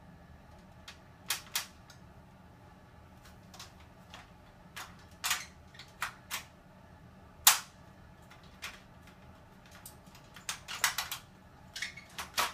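Sharp metal clicks and clacks from an ironing board's folding leg mechanism being worked by hand, coming irregularly, with the loudest one about seven seconds in and a quick run of clicks near the end.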